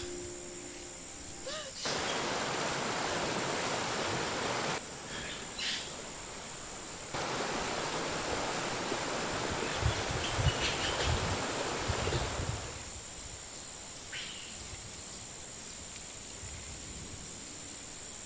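Water rushing down a rocky forest cascade, cutting in abruptly about two seconds in, easing off briefly, then coming back before fading out after about twelve seconds. A steady high-pitched insect whine runs under it, with a few short bird chirps.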